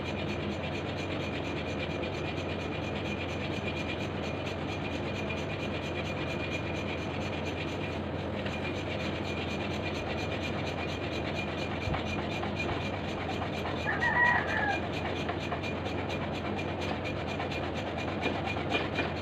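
Hand saw rasping steadily through a large block. Near the two-thirds mark there is a brief warbling chirp.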